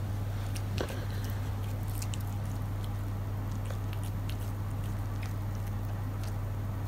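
A cat eating dry bonito flakes from a ceramic bowl: scattered, irregular soft clicks of licking and chewing. A steady low hum runs underneath.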